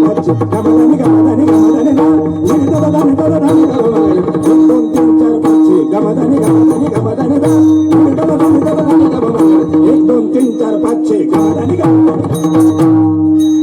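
Instrumental passage of Marathi devotional abhang music: Indian hand drums play a busy, steady rhythm over a held drone note.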